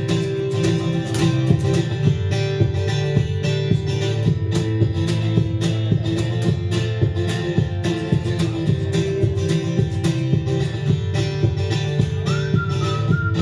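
Live band music: an instrumental passage of strummed guitar over a steady beat.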